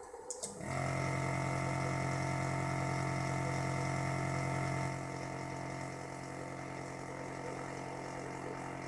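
Small vacuum pump of a robot arm's suction pickup switching on with a click and running with a steady hum. It gets somewhat quieter about five seconds in.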